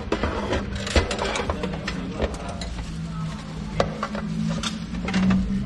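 Scattered clinks and knocks of utensils and stainless-steel food trays as toppings are picked out and plated, over a low steady hum.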